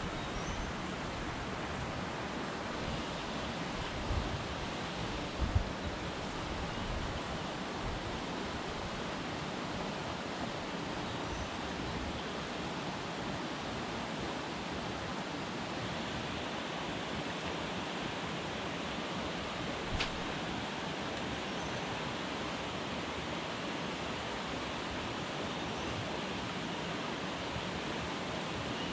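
Steady, even outdoor background hiss, with a few low knocks in the first several seconds and a single sharp click about two-thirds of the way through.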